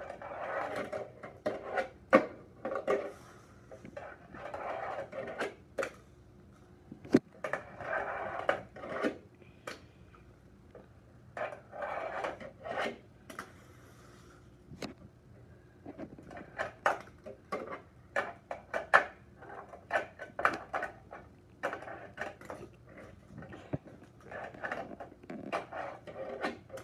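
Tech Deck fingerboard rolling and scraping along plastic ramps and rails in runs of a second or two, with many sharp clacks as the board pops, flips and lands on the plastic and the tile floor.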